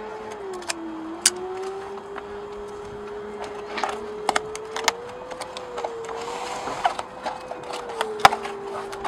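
Clear tape being pulled off the roll and pressed down onto the foam wing of an EPP RC plane: scattered crackles and clicks, with a longer rasp of tape unrolling about six seconds in. A steady, slowly wavering hum runs underneath.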